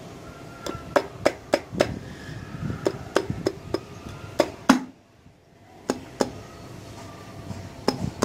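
Hands knocking a Honda CD-70's aluminium right crankcase (clutch) cover to seat it onto its gasket: a run of sharp knocks, a short pause about five seconds in, then a few more.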